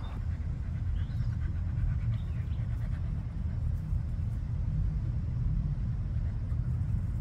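Steady low outdoor rumble, with a few faint short bird chirps above it.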